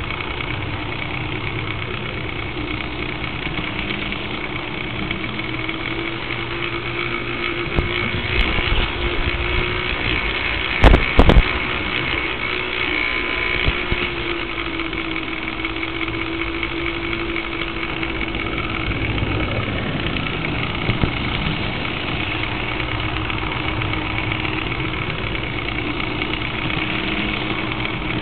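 An HO-scale model locomotive running along its track, heard through a small camera mounted on it: a steady motor-and-gear hum whose pitch drifts slightly as the speed changes. A few sharp clicks come about eight to eleven seconds in.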